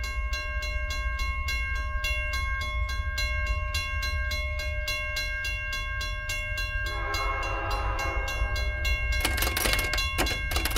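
Train sounds: a steady low rumble under a ringing tone that pulses about four times a second, with a louder rattling clatter building over the last few seconds.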